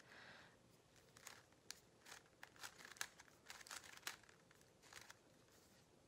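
Gan 356 M Lite magnetic speedcube being turned by hand: faint, quiet plastic clicks as the layers turn and snap into line, two or three a second at uneven intervals.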